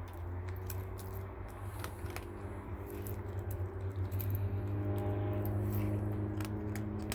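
Cat crunching dry kibble, a scatter of sharp irregular clicks, over a steady low electrical or mechanical hum.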